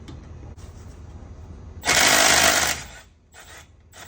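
Cordless 3/8-inch impact wrench (Milwaukee M12 Fuel) hammering hard for just under a second, breaking a stubborn seized bolt loose. Two short, quieter bursts follow as it spins on the freed bolt.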